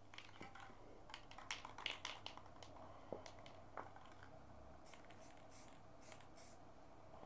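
Aerosol spray-paint can being handled and worked over a painting: faint clicks and scratchy ticks. Near the end come a few short, high hisses of spray.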